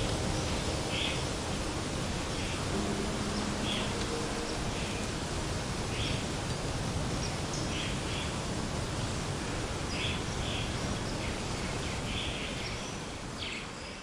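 Outdoor woodland ambience: a steady rustling background hiss with short songbird chirps every second or two. It fades out at the end.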